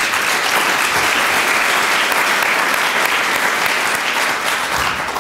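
Audience applauding: a dense, steady clapping that starts abruptly and begins to die away near the end.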